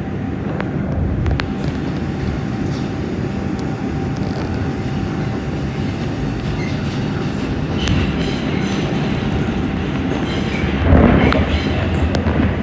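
Inside a Bombardier R142 New York subway car running on elevated track: steady rumble of the steel wheels on the rails, with a faint steady hum under it. The noise grows louder and rougher near the end as the train runs alongside a station platform.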